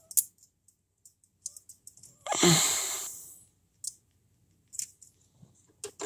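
Scattered small clicks and taps from a screwdriver and small parts on a diecast model car, with one loud burst of breath about two seconds in that fades over about a second.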